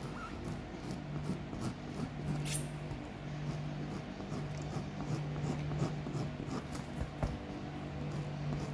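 Sandpaper rubbing back and forth on the rubber of a punctured basketball around the hole, roughening it so patch glue will grip: quick scratchy strokes about three a second, one sharper scrape about two and a half seconds in, over a steady low hum.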